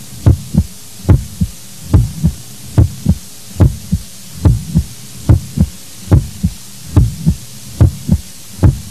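Heartbeat sound effect: a steady lub-dub double thump about every 0.8 seconds, roughly 75 beats a minute, over a faint low hum.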